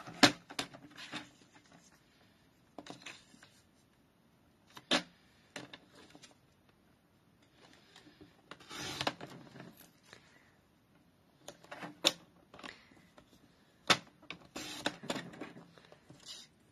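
Paper trimmer cutting card stock: a few sharp clicks of the blade carriage and rail being set down and pressed, and two short scraping rasps as the blade slides along the card, one about halfway and one near the end, amid paper being handled.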